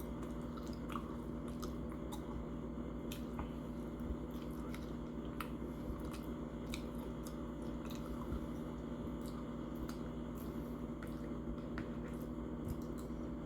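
Close-miked mouth sounds of a person eating: scattered short wet clicks and smacks of chewing over a steady low hum.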